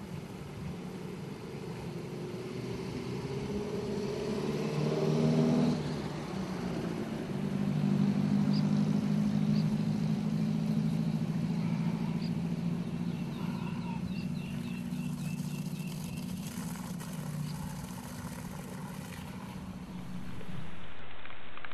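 An engine running steadily, its pitch rising and getting louder about five seconds in, then holding steady.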